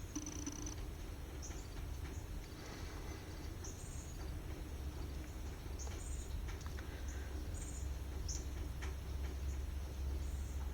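Small songbirds at backyard feeders giving short, high chirps, scattered irregularly, over a steady low background rumble.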